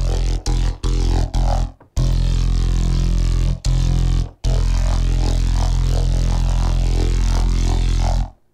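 Distorted drum-and-bass Reese bass from a Bitwig Polysynth patch, played as long, gritty held notes with short breaks between them. Its keytracked EQ5, which sweeps the mid band, is switched off and on again partway through. The bass cuts off just before the end.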